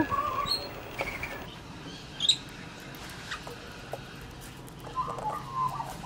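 Rainbow lorikeets giving short, high chirps and squeaks a few times, the sharpest about two seconds in, then a short run of lower chattering near the end.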